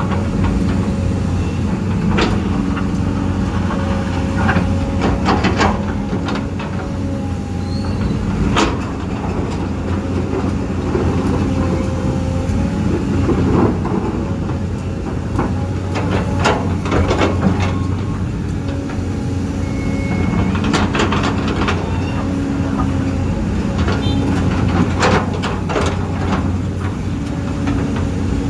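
Huina 1550 RC excavator's electric motors and gearboxes whirring steadily, the tone shifting as the machine works, with scattered sharp clicks and knocks throughout.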